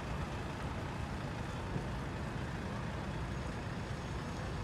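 Steady low rumble of a van ambulance's engine and tyres as it drives slowly away across a paved lot.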